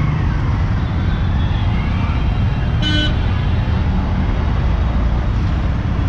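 Road vehicle and traffic noise: a steady low engine and road rumble, with one short horn toot about three seconds in.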